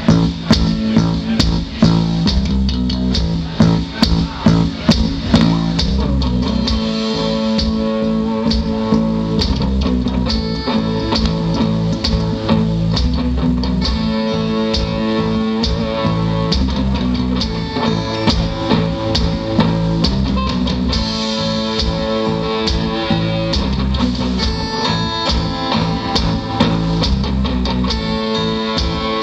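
Live rock band playing: electric guitars, bass guitar and drums, with heavy drum hits in the first few seconds.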